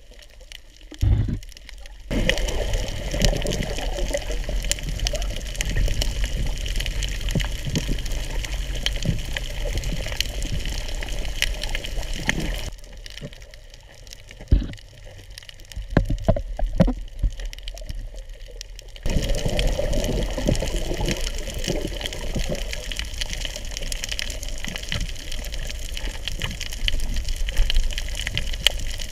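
Water rushing and swishing around an underwater camera as it is carried through the sea by a snorkeler. The rush drops away for several seconds about halfway, leaving scattered clicks and a sharp knock, then comes back.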